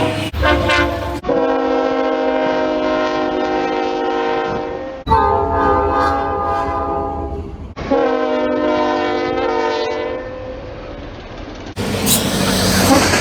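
Locomotive horns sounding long blasts one after another, with abrupt cuts between the recordings every few seconds. Near the end the horn gives way to the rushing noise of a passing train.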